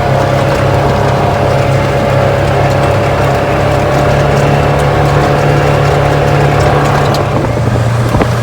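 A vehicle engine running steadily, its pitch dropping slightly about seven seconds in.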